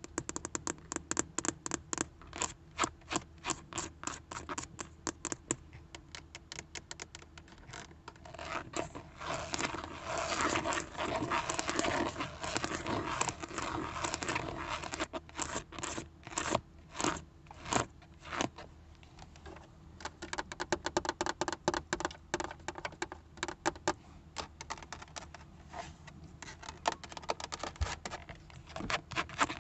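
Long acrylic fingernails tapping and scratching on a car's textured steering-wheel hub and its emblem. Quick runs of sharp taps give way to a stretch of steady scratching about eight seconds in, then return to taps.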